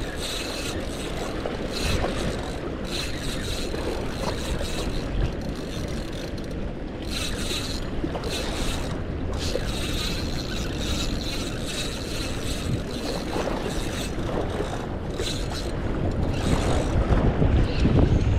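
Steady rush of wind buffeting the microphone over the sound of moving water, with no clear separate events.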